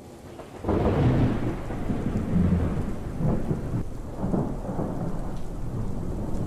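Thunderstorm: a thunderclap breaks in under a second in and rolls on in several rumbling swells over steady rain.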